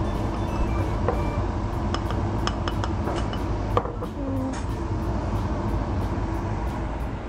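Wooden spoon clicking a few times against a frying pan of pasta about two to three seconds in, over a steady low rumble.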